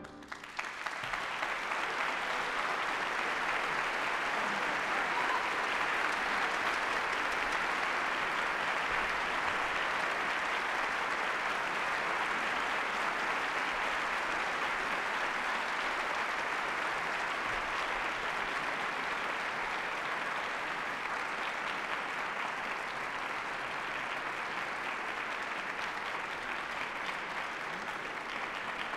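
Audience applauding, building up within the first second after the orchestra's final chord. The applause then holds steady and eases slightly toward the end.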